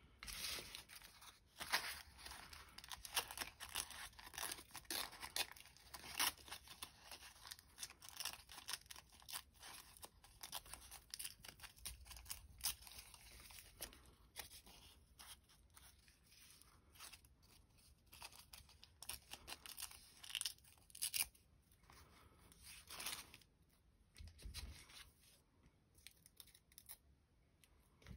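Thin printed collage paper being torn by hand and handled: a run of irregular ripping and rustling sounds, busiest in the first half and sparser toward the end.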